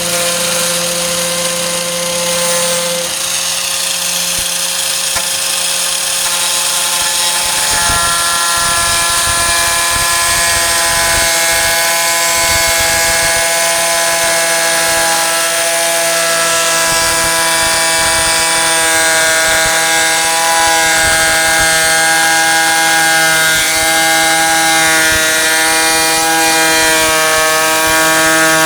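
4-1/2 inch electric angle grinder running on the tailgate's sheet steel: a loud, steady whine whose pitch shifts a few times as the load on the disc changes.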